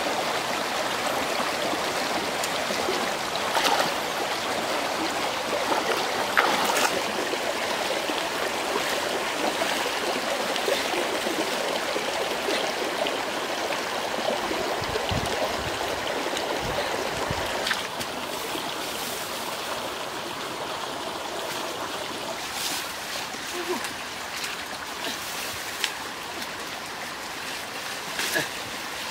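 Shallow rocky stream running steadily over stones, with a few faint knocks. The water grows a little softer about eighteen seconds in.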